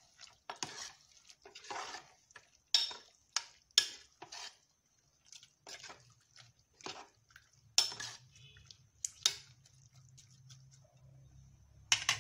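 A spoon scraping and clinking against the sides of a pressure cooker pot as prawns and masala are stirred: irregular short knocks and scrapes, some sharper than others.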